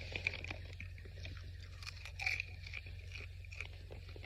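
Someone chewing a mouthful of popcorn: soft, irregular crunches and small clicks.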